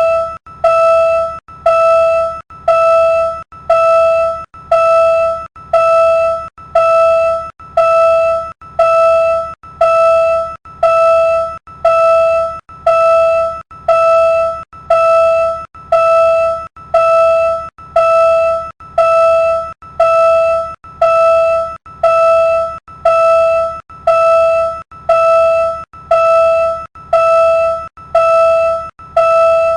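Railroad crossing warning bell ringing: the same single-pitched ding, each with a sharp strike and a short fade, repeated at a steady even pace.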